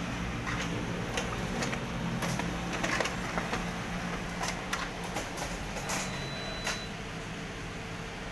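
Canon imageRUNNER photocopier running with its cooling fans blowing a steady hum and hiss, with scattered sharp clicks. One fan, the left one, is not turning: the fault behind error 805-0003.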